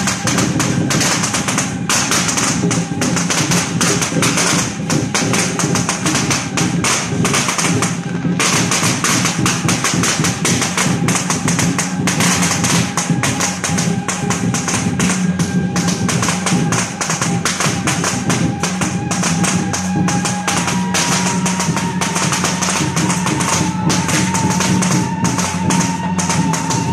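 Temple-procession percussion music: rapid, continuous clashing of cymbals and drums, with a long held high note that steps up slightly in pitch about two-thirds of the way through.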